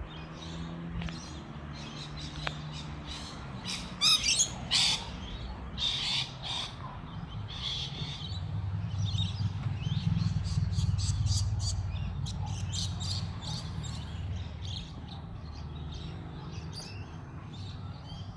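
Cessna 208B Grand Caravan's single PT6A turboprop passing overhead: a low drone that swells to its loudest about ten seconds in and then slowly fades. Birds chirp over it throughout, loudest about four to five seconds in.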